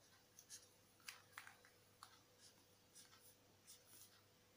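Faint scratching of a chisel-tip marker writing on paper, in short irregular strokes.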